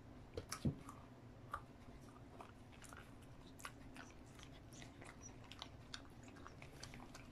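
Beagle chewing on a dog chew worked out of a rubber KONG toy: scattered soft clicks and crunches, with a couple of sharper knocks under a second in.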